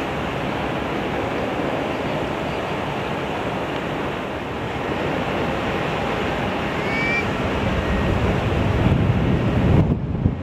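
Gusty wind rushing over the microphone with the wash of choppy harbour water, the low buffeting growing stronger near the end. A short, high, rising chirp about seven seconds in.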